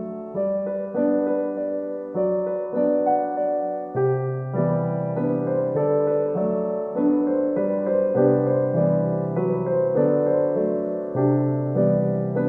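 Background piano music: a gentle piece with notes struck about every half second, each one fading after it is played.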